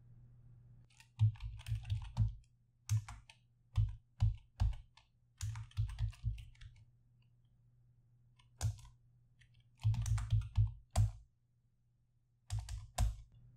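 Typing on a computer keyboard: short runs of keystrokes separated by pauses, with a single key press a little after the middle, as short terminal commands are typed and entered.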